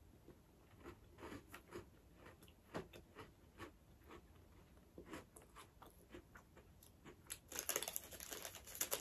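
Faint crunching and chewing of a Bisco cream sandwich biscuit being eaten, a run of short crisp crackles, with a louder, denser burst of crackling near the end.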